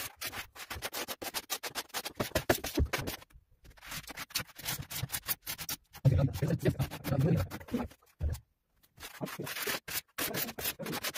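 Hand tiling trowel scraping and rubbing over tile adhesive and mosaic sheets on a ceiling, in quick repeated strokes that stop briefly twice.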